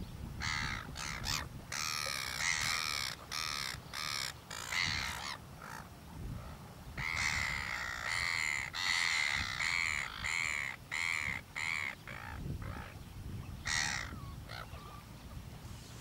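Harsh, squawking seabird calls given in quick runs, in two long bouts with one more call a couple of seconds before the end, over a low steady wash of water and wind.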